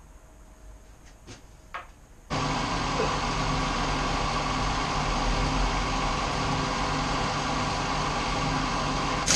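A few faint handling clicks, then a machine's motor switches on abruptly about two seconds in and runs with a steady hum. Sharp metallic knocks come right at the end.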